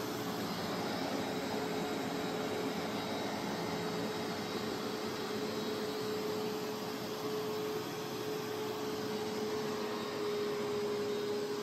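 Upright carpet cleaner running as it is pushed over carpet: a steady motor drone with one held tone.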